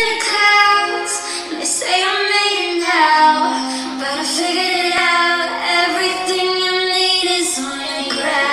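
A woman singing a K-pop solo song into a handheld microphone, with the song's music behind her; the sound is thin, with little bass.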